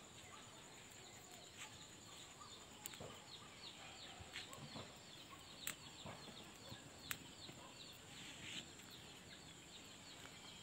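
Faint, rapid high chirping of birds, many short notes sliding downward, with a few sharp clicks scattered through it.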